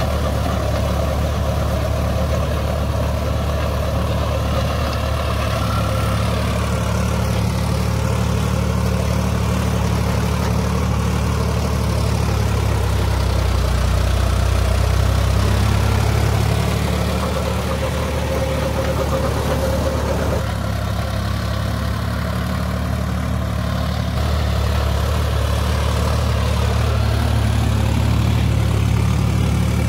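Sonalika DI 47 RX tractor's diesel engine running steadily under load while it drives a Shaktiman rotavator tilling paddy stubble.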